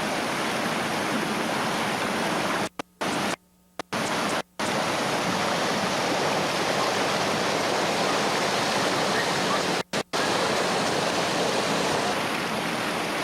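Steady rushing of river whitewater through a rapid. The sound cuts out abruptly several times: a few brief gaps around three to four and a half seconds in, and two short ones about ten seconds in.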